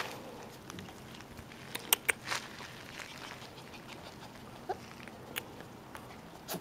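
A black-and-tan Shiba Inu puppy's paws pattering on asphalt as it walks, with two sharp clicks about two seconds in, a few more single clicks later, and a brief rising squeak about two-thirds of the way through.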